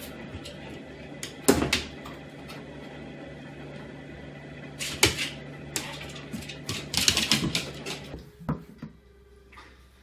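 Cardboard box knocked and rustled by a cat moving inside it: a few sharp bumps, about a second and a half in, around five seconds in and a quick cluster near seven seconds, over a steady low hum.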